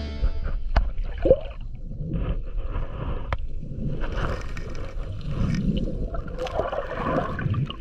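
Water sloshing and gurgling, with a few sharp clicks.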